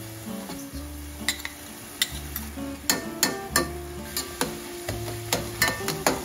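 Ground meat and chopped vegetables sizzling in a copper sauté pan while a spatula stirs them, the utensil clicking and scraping against the pan again and again, more often in the second half. Background music with a slow bass line plays underneath.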